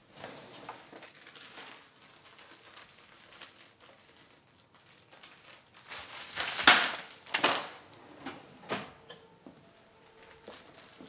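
Clothes being handled: soft rustling and crumpling of fabric, with a few louder swishes a little past the middle.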